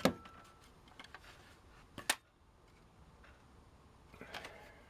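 Small parts being handled on a workbench: a sharp click right at the start and another about two seconds later, with a few faint ticks between.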